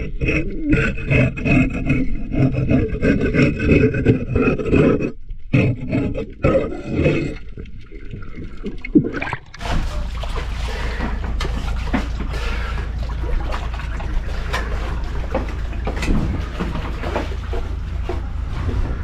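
A pitched mechanical hum with several steady tones, then an abrupt cut to an underwater microphone: a steady low rumble with many small crackles and scrapes, typical of divers scraping barnacles off a boat hull.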